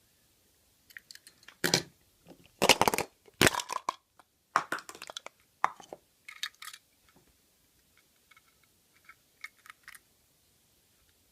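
Wrapping being handled and torn open, with a run of sharp crinkling and crunching rustles in the first half, then lighter scattered clicks and taps.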